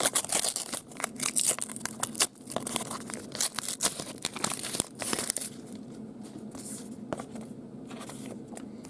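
A baseball card pack's wrapper being torn open and crinkled, with dense crackling for about five seconds, then quieter handling with a few soft clicks.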